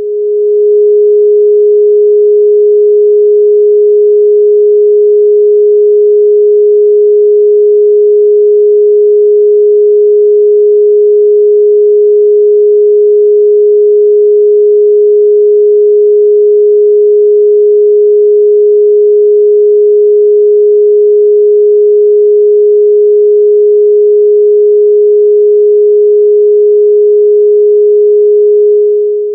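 A single steady electronic sine tone, a little below the A above middle C, held at constant pitch as a meditation drone. It swells in over the first second and fades out near the end.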